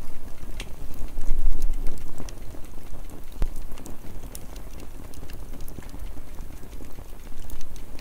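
Small campfire of burning sticks crackling, with scattered sharp pops over a constant low rumble.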